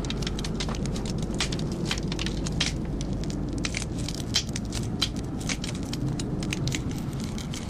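Film sound effects: dense, irregular crackling and clicking over a steady low rumble.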